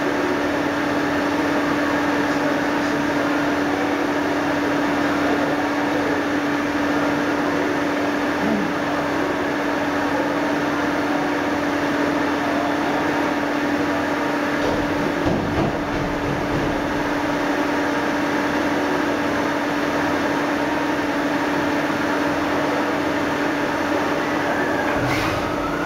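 CNC mill-turn machine running: a steady machine hum with a constant pitched tone over a noisy hiss, and a brief low rumble about halfway through.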